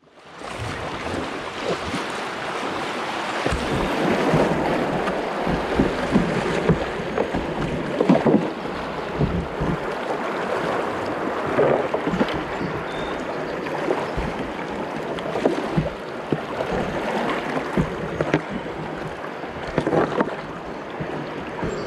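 Shallow river riffle rushing and splashing around a kayak's plastic hull, with irregular splashes, heard through a kayak-mounted GoPro. The sound rises out of silence within the first second.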